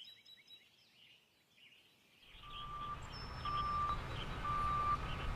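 Birds chirping faintly, then from about two seconds in a low rumble rising steadily, with a single-pitch backup-alarm beep repeating about once a second.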